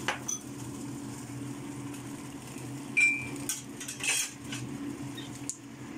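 Metal utensil clinking and scraping against a steel wok while stirring the food, with a sharp ringing clink about three seconds in and a few lighter knocks after. A steady low hum runs underneath.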